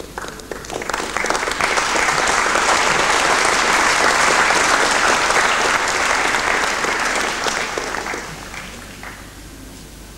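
Audience applauding: the clapping builds up over the first second or two, holds steady, then dies away about eight or nine seconds in.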